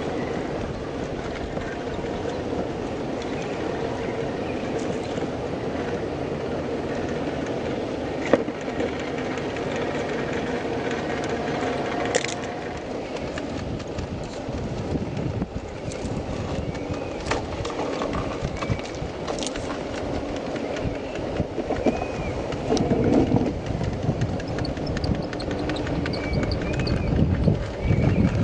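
Traxxas TRX4 RC crawler's Hobbywing Quicrun Fusion electric motor and gearbox whirring steadily as the truck crawls over rocks. Scattered sharp clicks and knocks come from the tyres and chassis on stone, and the sound gets heavier and louder in the last few seconds.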